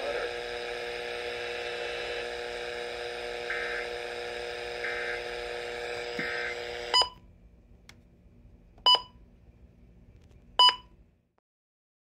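FM broadcast audio on a weather alert radio: a steady hum of several tones with three faint short data bursts, the EAS end-of-message tones. About seven seconds in the broadcast sound cuts off, and the radio gives three short electronic button beeps about two seconds apart.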